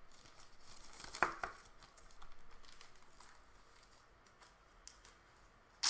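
Thin plastic trading-card sleeves and wrapping crinkling and rustling as cards are handled. There is a short louder scrape about a second in, and the sound fades to a faint rustle in the second half.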